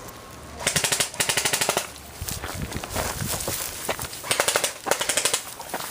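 Airsoft guns firing in rapid full-auto bursts, a fast clatter of shots about a second in and again near the end.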